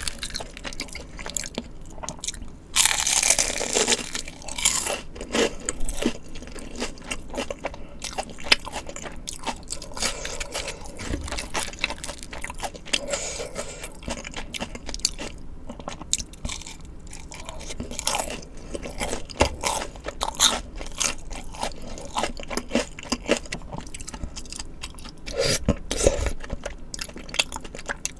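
Close-miked eating: crunchy bites and chewing of fried foods and tteokbokki, a steady run of crisp crunches with a louder burst about three seconds in.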